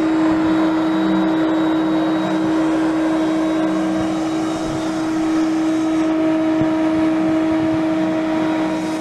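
CNC router spindle running with a steady whine as its bit routes the rounded outline of a glued-up hardwood cutting board.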